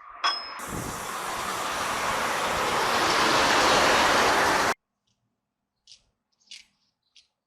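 A long, even rushing hiss that builds slowly in level and cuts off suddenly, followed by three short, sharp hisses.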